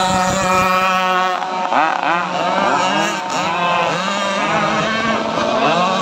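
Several RC racing powerboats with modified two-stroke chainsaw engines running flat out: a steady high whine at first, then from about a second and a half in their pitch swoops up and down repeatedly as the overlapping engines pass and turn.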